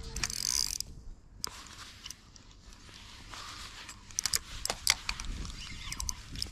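Shimano Vanford 2500 spinning reel clicking and ticking as it is handled, with a handful of irregular sharp clicks, loudest in a cluster about four to five seconds in. A short hiss fills the first second.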